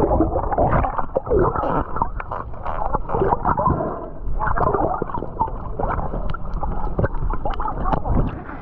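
Muffled underwater sound of a diver: churning water and gurgling bubbles, with many short sharp pops and knocks.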